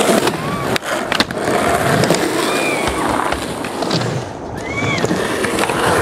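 Skateboard wheels rolling on rough concrete, a constant grinding rumble, broken by sharp clacks and knocks of the board and a few brief high squeaks.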